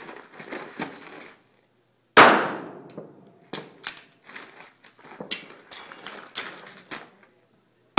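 A handgun shot about two seconds in, ringing out as it dies away, and another shot right at the end. Between them come softer sharp clicks and knocks.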